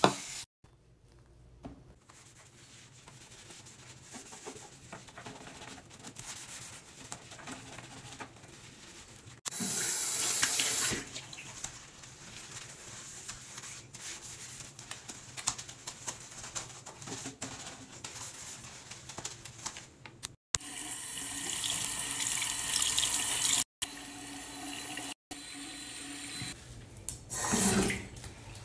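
Bathroom sink being cleaned: a sponge scrubbing the basin and tap water running into it. It comes as a string of short clips that cut off abruptly.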